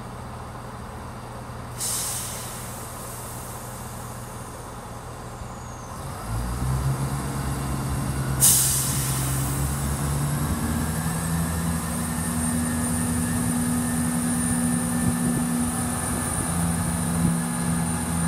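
Northern Class 170 Turbostar diesel multiple unit departing: its underfloor diesel engines idle with a low hum, then rev up about 6 s in and run steadily as the train draws away. A short air hiss comes about 2 s in and a louder, sharp one about 8.5 s in, typical of the brakes releasing.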